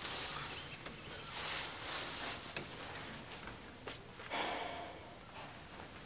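Quiet rural outdoor ambience: a faint, steady high-pitched insect trill runs throughout, with a brief rustle about a second and a half in and a few light clicks and shuffles.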